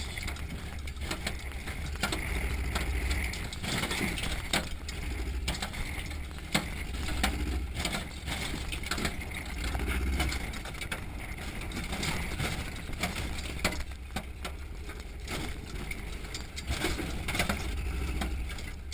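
Onboard sound of an off-road trophy truck driving fast over a rough dirt trail: heavy wind buffeting on the microphone, the truck running underneath, and frequent knocks and rattles from the chassis over the bumps.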